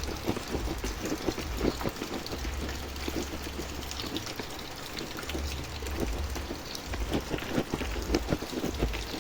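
Hands stirring and turning a moist chicken-feed mash of rice bran, fermented tofu pulp and probiotic solution, with many irregular short rustles.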